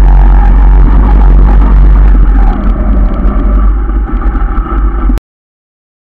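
Yamaha RX 135 two-stroke single-cylinder motorcycle running on the move, heard from a handlebar camera with a heavy low rumble. About two and a half seconds in the sound turns uneven and the high end fades, and a little after five seconds it cuts off suddenly.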